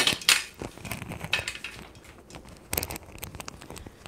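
Handling noise from a handheld camera phone carried while walking: scattered rustles, clicks and knocks, loudest just after the start and again near three seconds in.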